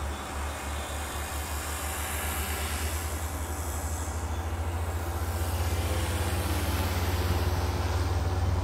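A steady low rumble with a hiss above it, growing slightly louder toward the end.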